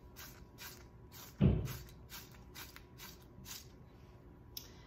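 Rubber scraper scraping batter around the sides of a stainless steel mixing bowl in quick repeated strokes, about three a second, with one dull thump about a second and a half in.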